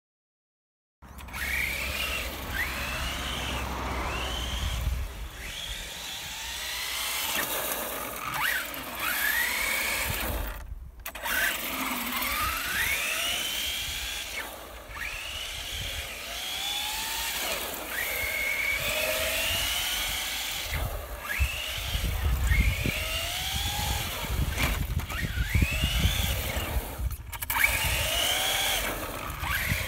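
Traxxas Slash 4x4 RC truck's electric motor and drivetrain whining, the pitch sweeping up and falling back again and again as the throttle is worked on tarmac. The sound starts about a second in and breaks off abruptly twice.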